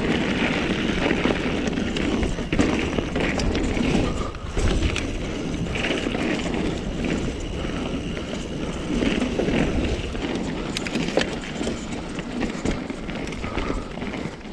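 Mountain bike ridden over a rough trail: tyres rumbling on the ground, with a few sharp rattles or knocks from the bike.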